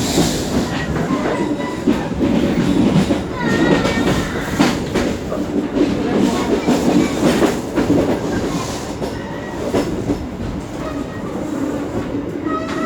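Train running: a steady rumble with repeated clatter of wheels over the rail joints, heard from aboard the train.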